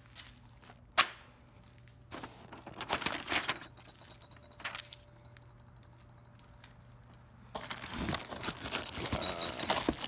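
Unboxing sounds of cardboard packaging and plastic bags being handled: a sharp snap about a second in, then scattered rustling of cardboard, with plastic wrap crinkling steadily near the end as a bagged accessory is lifted out.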